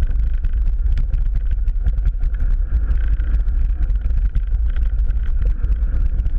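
Wind buffeting the microphone of a camera mounted on a mountain bike as it rides fast over a dirt trail and grass, a steady low rumble with frequent rattles and clicks from the bike over the rough ground.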